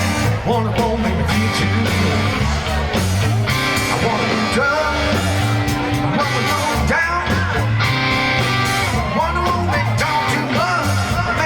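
Country-rock band playing, with electric guitar over a steady bass line.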